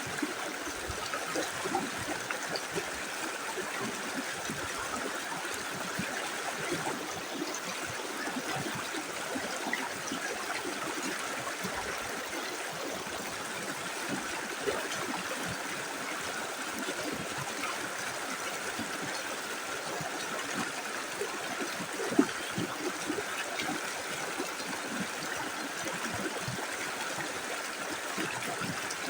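A small river flowing steadily over stones, a continuous rush with small splashes and gurgles, and one slightly louder splash about 22 seconds in.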